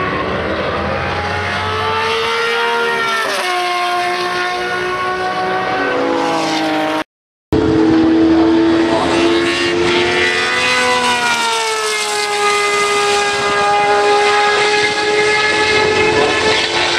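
Matra 670 race car's V12 engine running hard, its high-pitched note climbing and dropping several times as it drives through the corners. The sound cuts out briefly about seven seconds in.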